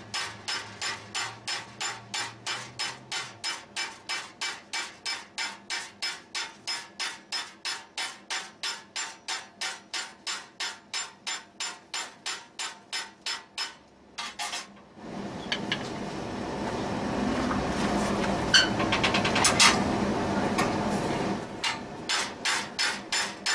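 Hand hammer striking a red-hot steel bar clamped in a vise, quick even blows about four a second, upsetting the corner of a square bend. The blows pause a little past halfway; a stretch of steady rushing noise with a few sharp knocks follows, and the quick hammering resumes near the end.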